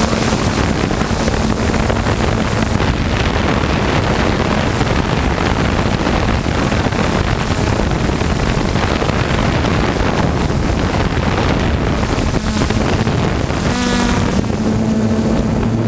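Quadcopter drone's motors and propellers running, heard from the drone-mounted camera, mostly buried under heavy wind rush on the microphone. About two seconds before the end the steady motor hum comes through clearly, with a brief higher whine.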